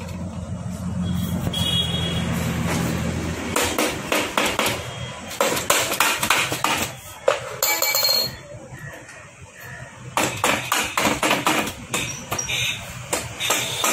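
Metal hand tools tapping and clinking on the split aluminium crankcase of a Hero Splendor Plus engine as it is worked apart. The knocks come irregularly from about four seconds in. Before them there is a steady low hum for the first few seconds.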